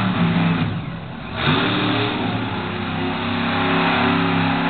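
Monster truck engine revving hard. It eases off about a second in, then surges back up in pitch and holds at high revs.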